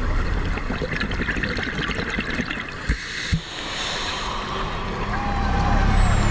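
Underwater noise with steady rushing and crackly bubbling, and two sharp knocks about three seconds in.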